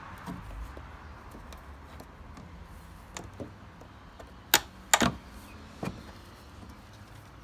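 Scattered hard plastic clicks and knocks as a car tail lamp assembly is handled and refitted. The two loudest come about four and a half and five seconds in, with a third a second later.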